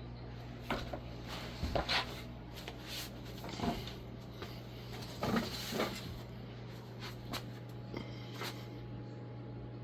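Vintage Casablanca Victorian ceiling fan with a K63 motor running at low speed, with a steady low motor hum. Irregular sharp clicks and knocks come on top, the loudest around two seconds in and again around five to six seconds in.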